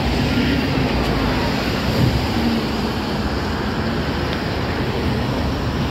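Steady road traffic on a busy city street, with wind rumbling on the microphone.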